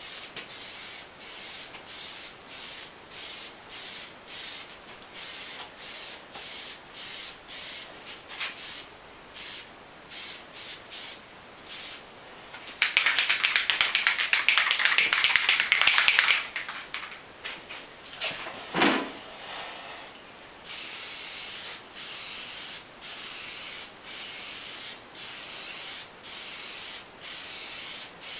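Aerosol can of Plasti Dip hissing in short, repeated spray bursts. About halfway through comes a few seconds of loud rattling, the mixing ball being shaken in the can, then a short falling squeak. After that the spraying resumes in longer, near-steady hisses.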